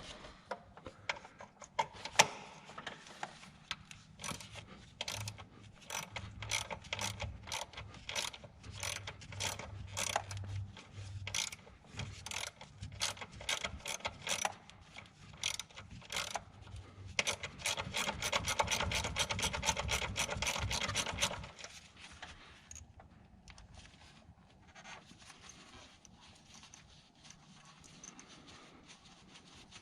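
Hand ratchet clicking in short strokes, then spinning quickly in a fast run of clicks for a few seconds. After that, quieter handling noises.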